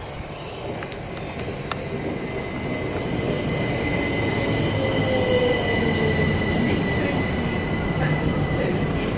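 Train running by on the track, its rumble growing louder over the first four seconds and then holding steady, with a thin, steady high-pitched whine above it.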